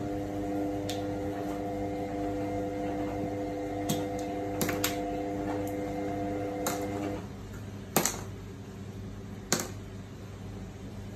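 Small sharp clicks and taps as button-cell batteries are pushed out of a blister card and snap onto a magnet; the loudest snap comes about eight seconds in. A steady hum sits under the clicks and stops about seven seconds in.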